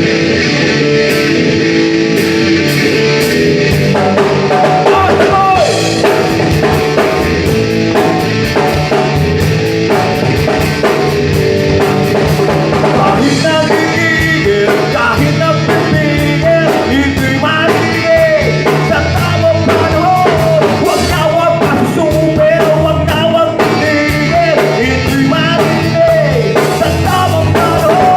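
Rock band playing live: electric guitar, bass guitar and drum kit, with the drums' cymbals coming in about a second in. A lead vocal is sung over the band, strongest in the second half.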